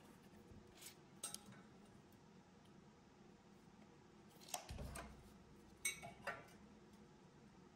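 Near silence broken by a few short light clicks and clinks: two about a second in, a duller knock just before five seconds, and the loudest pair about six seconds in.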